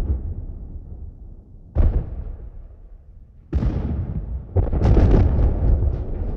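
A series of distant explosions: four booming blasts, each rolling off into a low rumble. The last two come about a second apart and run together into a long rumble with crackles.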